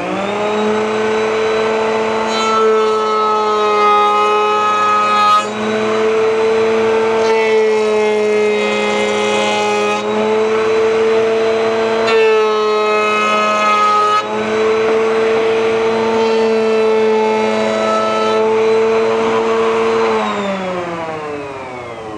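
Table-mounted router running at full speed while a test board is fed past a 1/2-inch round-over bit. Twice, about 3 seconds and 12 seconds in, a harsher cutting sound joins the motor for two to three seconds as the bit profiles the wood. About 20 seconds in the router is switched off and its pitch falls as it spins down.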